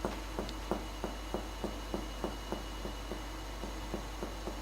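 Finger-on-finger percussion of a patient's back along the paravertebral line, tracing down to the lower border of the lung: a regular series of soft taps, about three a second, growing weaker in the last second or so.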